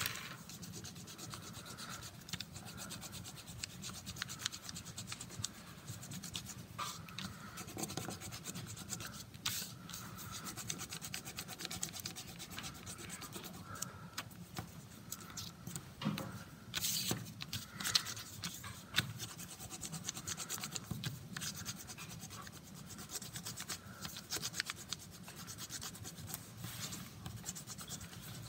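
A pen rubbed hard back and forth over folded paper on a desk, making a quick, irregular scratching with a few louder strokes. The pressure transfers the graphite of a pencil drawing through to the folded-over half of the sheet.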